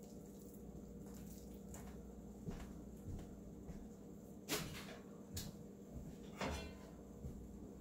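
Several faint knocks and clatters of kitchenware being handled, the clearest about halfway through, over a low steady hum.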